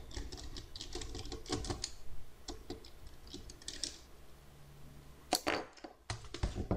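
Rapid small clicks and plastic ticks of a screwdriver backing out a missed screw from a Dell Latitude D630 laptop's case. The clicks are dense at first and then sparser, with a few louder knocks after about five seconds and at the end.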